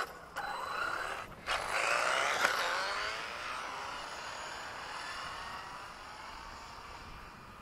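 Brushless electric motor of an HPI Vorza 1/8 RC buggy (2200kv, 6S) accelerating hard away down the road. The whine climbs in pitch with a short break in throttle just over a second in, then fades steadily as the car speeds off into the distance. A sharp click comes right at the start.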